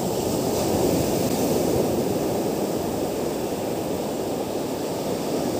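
Surf washing up a sandy beach: a steady rushing of waves.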